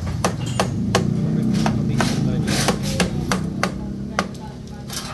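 Irregular sharp metallic clinks and knocks, a dozen or so, from metal engine parts and tools being handled, over a steady low hum.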